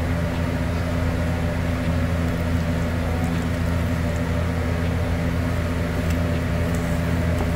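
A steady low mechanical hum, with a wooden spoon stirring and mashing potatoes in an aluminium pot; a few faint scrapes of the spoon against the pot.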